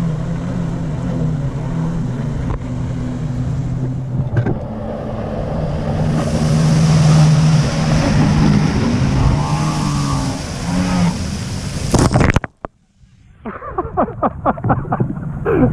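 Jet ski engine running hard, its pitch shifting as it comes close below, joined about six seconds in by a loud hiss of water spray. About twelve seconds in the sound cuts off abruptly, then returns as a run of sharp, irregular crackles and taps.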